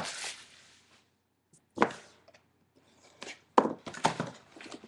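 Hands opening a 2012 Panini Playbook Football trading-card box: a sharp knock about two seconds in and two more close together near the end, with light scraping and rustling of the cardboard between them.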